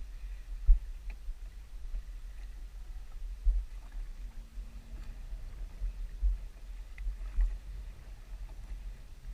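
Water knocking and lapping against a small fishing boat's hull, heard as low rumble with irregular soft thumps. A brief low hum comes about halfway through.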